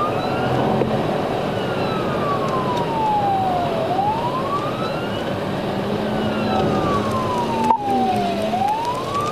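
Police car siren on a wail, its pitch slowly rising and falling about once every four seconds, heard from inside the pursuing patrol car over steady engine and road noise at high speed.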